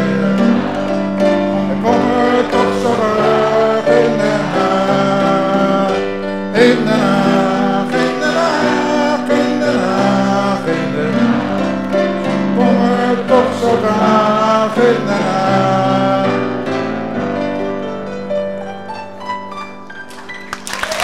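Grand piano playing with voices singing along. The singing stops after about 16 seconds and the piano plays on alone, more quietly, to the close of the song.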